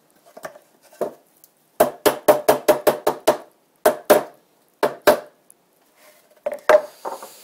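Light hammer taps on the wooden tongue-and-groove pieces of a Langstroth beehive bottom board, knocking the glued boards together so they seat tight. A quick run of about nine taps comes about two seconds in, followed by a few more spaced taps.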